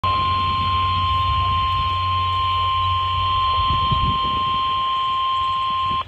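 Emergency alert tone from a Midland emergency weather radio's speaker: one long, steady, high single-pitch beep over a low hum, cutting off suddenly at the end. It is the attention signal that opens a National Weather Service warning broadcast.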